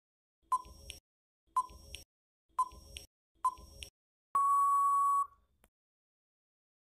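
Quiz countdown-timer sound effect: four short beeps about a second apart, then one long steady beep lasting about a second, marking the end of the answer time.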